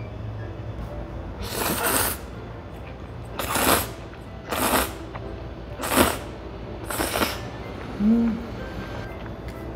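Ramen noodles from rabokki being slurped up in five short noisy sucks a second or so apart, followed by a short low hum near the end.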